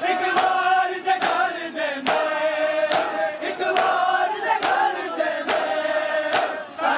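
A large crowd of men chanting a Shia noha (mourning lament) in unison, with sharp chest-beating (matam) slaps landing together in a steady beat, eight strikes a little under a second apart.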